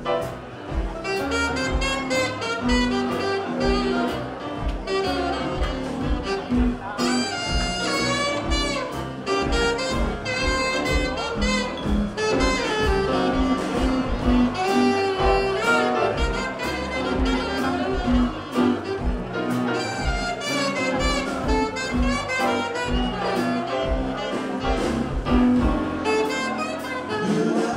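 Small jazz band playing live, with a saxophone carrying the lead over double bass and a rhythm section keeping a steady beat.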